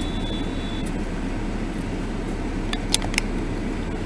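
Steady low rumble of traffic and the car's running engine, heard from inside the cabin through a dashcam. A faint high tone sounds in the first second, and two or three sharp clicks come about three seconds in.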